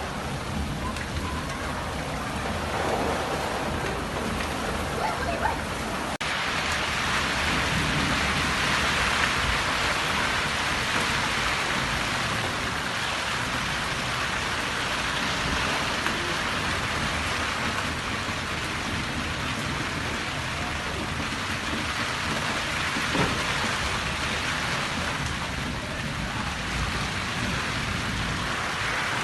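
Heavy monsoon rain falling steadily, a dense even hiss; about six seconds in it turns abruptly louder and brighter.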